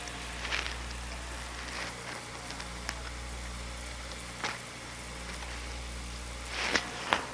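Steady low hum and hiss of an old film soundtrack, broken by a few brief clicks and crackles; the loudest two come close together near the end.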